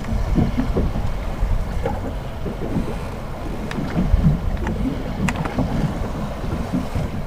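Wind buffeting the microphone on an open fishing boat, with choppy water slapping against the hull. A few sharp clicks come around the middle.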